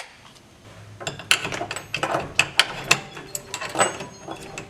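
A sharp click, then from about a second in a run of irregular clicks and knocks.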